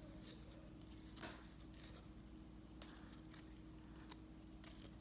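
Faint scattered clicks and rustles of baseball trading cards being handled and slid apart from a freshly opened pack, over a low steady hum.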